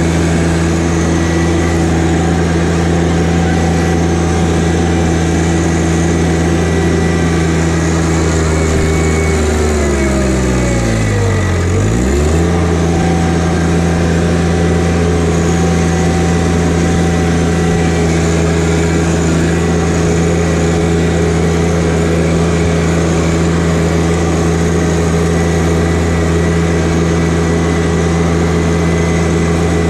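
John Deere 1025R compact tractor's three-cylinder diesel engine running steadily while the tractor is driven. About ten to twelve seconds in, a sweep falls in pitch and then snaps back up.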